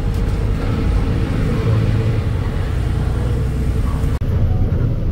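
Goods truck's diesel engine and road rumble heard from inside the cab while driving, a steady low drone.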